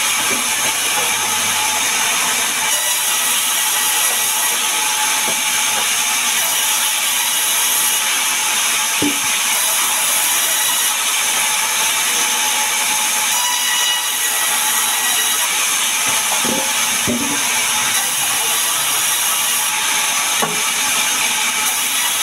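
Sawmill band saw running and cutting sengon (albizia) logs into boards: a loud, steady, high-pitched hiss of the blade through the wood. A few short wooden knocks come about 9 seconds in and again around 17 and 20 seconds, as the timber is handled.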